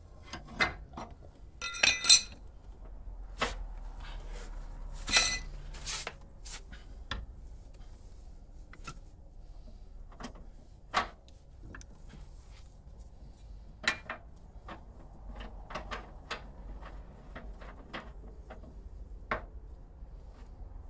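Hand tools clinking and knocking against metal during rear toe adjustment on a car. The loudest metallic clatter comes about two seconds in and another around five seconds, followed by scattered sharp clicks.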